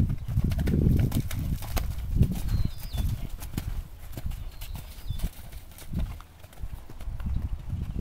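Horse's hooves thudding on a sand arena at the canter, in an uneven rhythm that grows fainter after the middle as the horse moves away.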